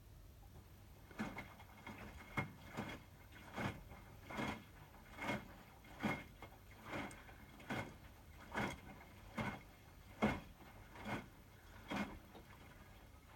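Hotpoint WMFUG 942 front-loading washing machine tumbling a medium load of wet towels at wash speed. The motor drives the drum in regular surges, with a swish and thud a little more than once a second. The owner says the motor always sounds as if it is struggling like this with towels and that it is normal.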